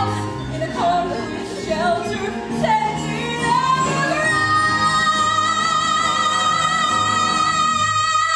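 A woman singing a show tune over band accompaniment: a few short sliding phrases, then a long held high belted note from about four seconds in.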